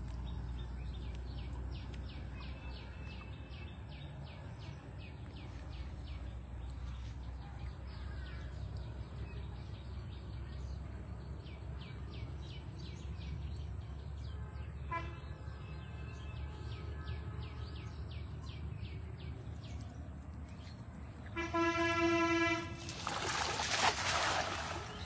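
A steady low rumble with a run of faint high ticks. Near the end a horn sounds for about a second, then comes the swish and splash of a cast net thrown out and landing on the water.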